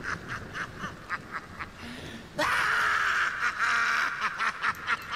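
Rapid cackling laughter in quick pulses, growing suddenly louder about two and a half seconds in.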